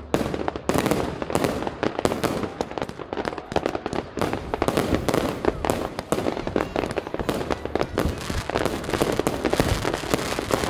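Fireworks display: a rapid, unbroken string of bangs and crackles from bursting shells.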